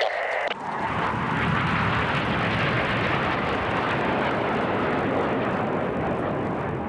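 Formation of BAE Hawk jet trainers flying past low, a steady jet-engine rush that builds over the first second and holds. A short loud burst of a different sound cuts off about half a second in.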